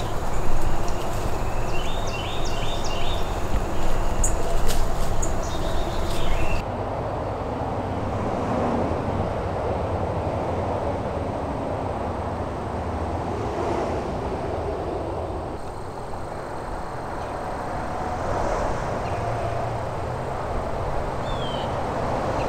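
Steady rush of road traffic, swelling and easing as vehicles pass. Before it, for the first few seconds, there is a low rumble with a few clicks and a quick run of four short high chirps. One more short chirp comes near the end.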